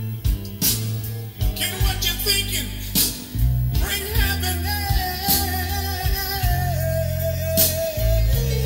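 A song with a singer, guitar, bass and drums, played back from a cassette on a Nakamichi BX-100 deck; a long held note comes in about four seconds in.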